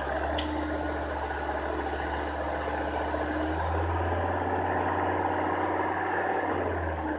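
Volvo D5 diesel engine running, with a steady low hum. It grows louder about halfway through and drops back just before the end, and there is a single short click under a second in.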